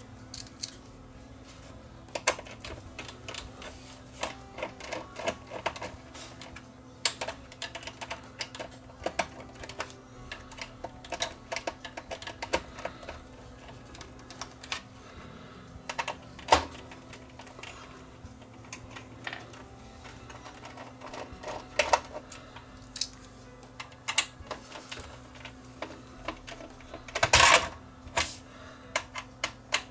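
Irregular small clicks and taps of a screwdriver and metal parts being handled as the screws holding a Sony DAT recorder's tape transport deck are taken out, with one louder noise lasting about half a second near the end. A steady low hum runs underneath.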